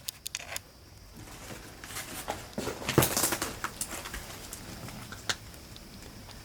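Scattered crunches and clicks, like footsteps and debris underfoot on a littered floor, busiest about two to three seconds in, with one sharp click near the end.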